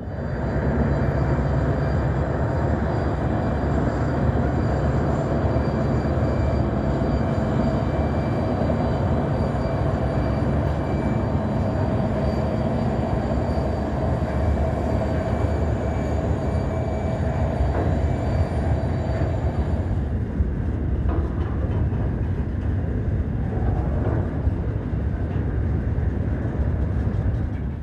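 SCT Logistics diesel-electric locomotives passing close, engines running with a steady whine over the low rumble of the train. About twenty seconds in the whine fades and the rumble of wheels on rail continues.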